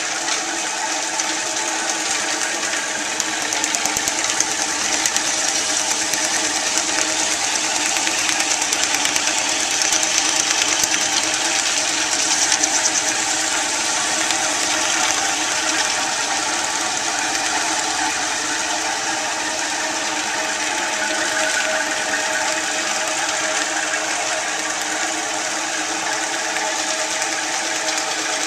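Rose Mfg. 20-inch Rociprolap vibratory flat lap running steadily while it laps a load of rock specimens in grit slurry, with an even, rapid mechanical rattle.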